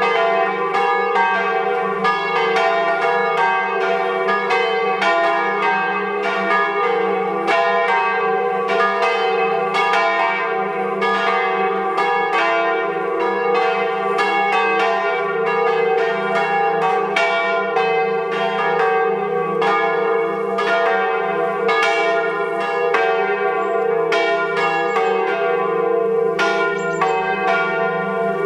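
Swinging church bells of a five-bell peal tuned diatonically in E-flat, ringing together in a full peal: strikes come several times a second and overlap without a break over a steady deep hum of the bells ringing on.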